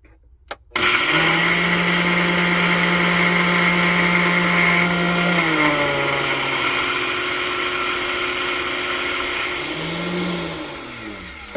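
Blender grinding a dry mix of oats, pecans and cocoa powder: the motor switches on abruptly about a second in and runs steadily, its pitch drops about halfway through, and it winds down with a falling pitch near the end.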